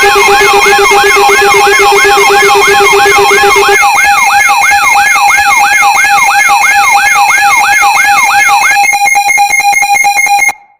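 Electronic alarm tone of a mock Emergency Alert System alert: a repeating whooping sweep, about three a second, layered over steady tones. A low tone drops out a few seconds in. Near the end the sound breaks into a fast stutter and then cuts off suddenly.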